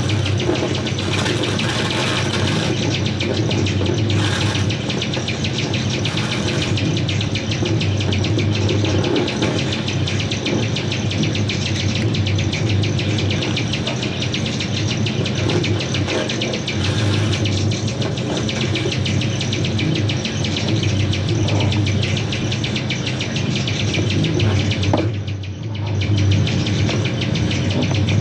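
Harsh electronic noise from a homemade noise-music rig: a steady low buzz under dense, rapid crackling and chirping, briefly dropping away near the end.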